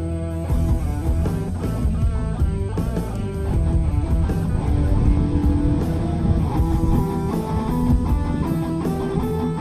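Background music: a rock track with electric guitar and a steady beat.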